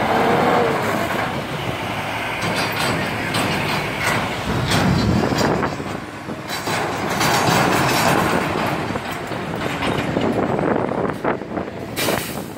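Road traffic with a heavy diesel truck and passing cars: a steady rush of engine and tyre noise, with an engine tone shifting in pitch in the first second.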